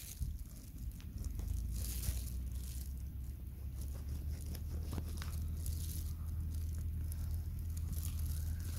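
A knife cutting a wild mushroom free at ground level among dry grass: soft crunching, tearing and scraping, with a low steady rumble underneath from about a second in.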